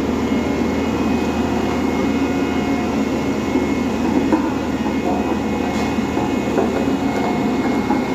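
Heavy truck's diesel engine running steadily and loudly.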